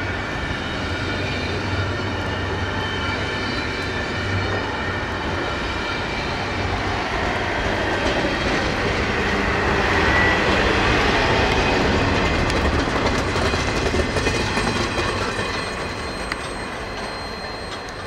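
Double-stack intermodal freight cars rolling slowly past, their steel wheels clicking over the rail joints with a thin steady squeal. The sound grows louder as a car passes close, then fades near the end as the last car moves away.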